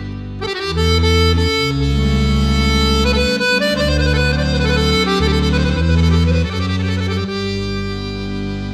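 Instrumental background music: held chords over a low bass line that changes note every second or so.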